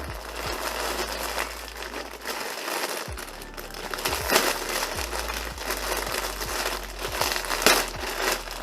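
Packaging crinkling and rustling as a plush toy is unwrapped and handled, irregular crackles with louder bursts about four and a half and near eight seconds in.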